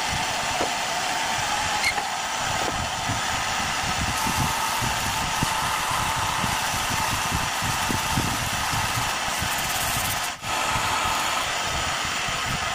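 Wood lathe running steadily, its motor and spinning workpiece giving a continuous mechanical whir. The sound drops out for an instant about ten seconds in.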